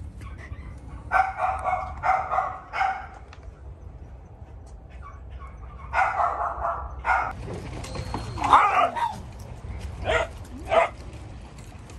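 A dog barking in short bursts, in several clusters with pauses between.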